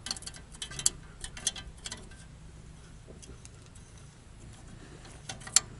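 Open-end wrench clicking against a nut on a Dana 44 front spindle stud as it is turned: scattered light metal ticks in the first couple of seconds, then a sharper click or two near the end. The nut is spinning on the stripped stud without backing off.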